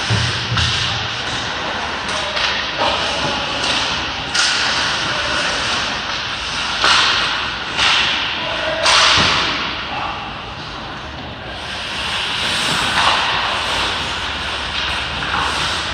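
Ice hockey play: skate blades scraping and carving on the ice, with repeated sharp clacks and thuds of sticks, puck and boards, the loudest about nine seconds in.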